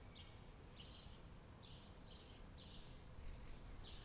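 Faint outdoor ambience: short, high chirps repeating irregularly about twice a second over a low rumble.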